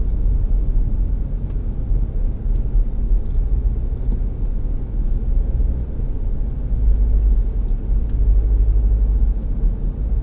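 Car driving, a steady low road-and-engine rumble heard from inside the cabin.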